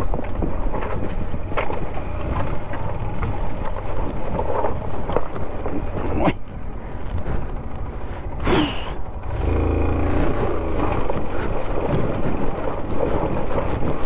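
Motorcycle engine running in low gear over a rough, broken mountain track, with scattered knocks and rattles. The engine gets louder for about a second past the middle.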